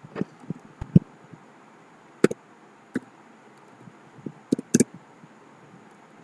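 Typing on a computer keyboard: about ten separate, irregularly spaced keystrokes, several in the first second and a quick group of three about four and a half seconds in.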